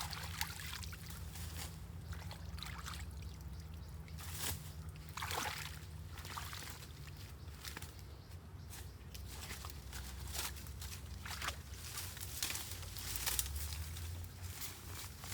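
Water trickling and sloshing, with scattered short splashes over a steady low rumble.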